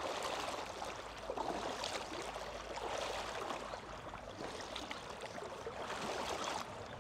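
Steady wash of moving water in a shallow river, with irregular louder swishes.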